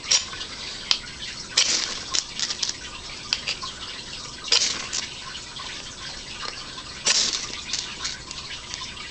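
Spine of a large knife scraped down a ferro rod to throw sparks: four rasping strokes, about a second and a half to three seconds apart, with lighter scratches and clicks between them.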